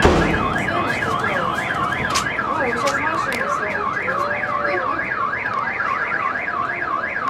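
Car alarm siren warbling rapidly up and down, about four sweeps a second, among fireworks. A firework bang at the start is the loudest moment, with scattered pops after it.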